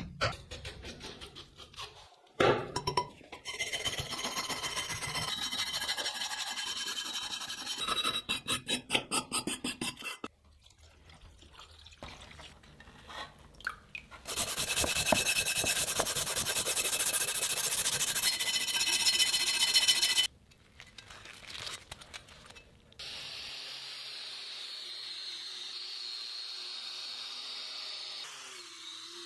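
Workshop tool sounds in quick succession: runs of rapid striking, long stretches of rough abrasive noise, and a steady motor hum near the end.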